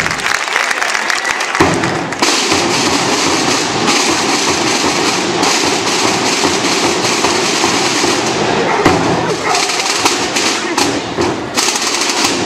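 Indistinct crowd chatter with a sharp thud about a second and a half in and another about nine seconds in.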